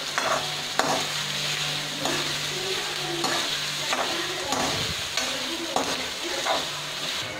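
Chopped onion and green chillies sizzling in hot mustard oil in a stainless steel pan, with a metal spatula scraping and clinking against the pan as it stirs, every second or so. This is an Indian tadka, the tempering step.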